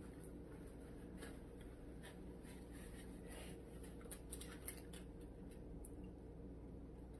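Faint small sounds of someone eating a sandwich: soft clicks, rubs and rustles over a steady low hum, with two sharper clicks a little past the middle.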